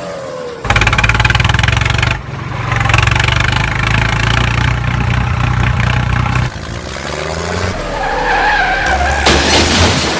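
Vehicle engine running with a fast, even chug. It cuts in abruptly about a second in and drops away after about six seconds. A higher, wavering engine sound follows, and a scraping noise comes near the end.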